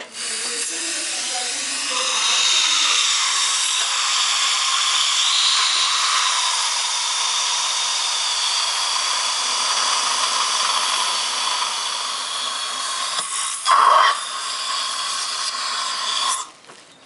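High-speed dental handpiece whining steadily as it grinds enamel from the front teeth, taking about half a millimetre off to make room for porcelain veneers. It briefly gets louder shortly before it stops near the end.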